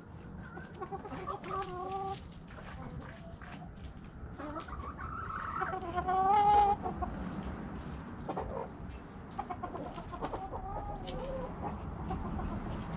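Chickens clucking, with short calls throughout and one louder, longer wavering call a little past halfway.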